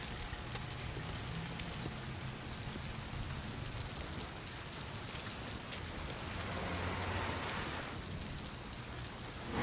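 Steady rain falling on a wet street, with a low steady hum underneath; the rain swells slightly about seven seconds in.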